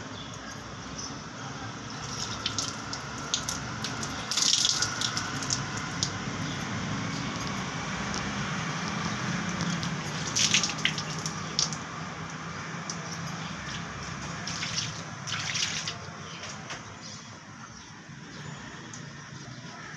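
Water running from a tap and splashing as hands scoop it onto a face, with a few louder splashes along the way.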